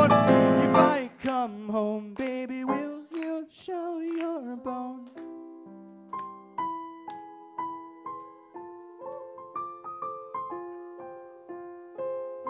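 Stage keyboard played with a piano sound. A loud passage cuts off about a second in, a few short notes step down in pitch, and then a quiet, slow melody of single notes and soft chords follows.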